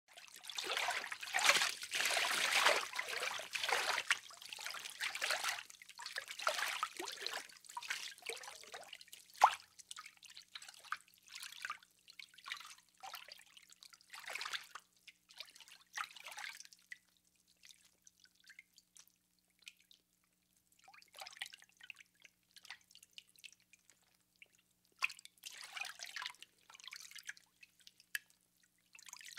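Bath water sloshing and splashing as a person bathes in a tub, with drips and trickles. The splashing is heaviest in the first few seconds, then thins to scattered small splashes and drips, with another spell of splashing near the end.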